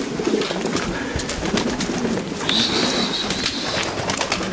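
A flock of Maltese pigeons cooing in a low, continuous murmur. A thin, steady high tone runs for almost two seconds from a little past the middle.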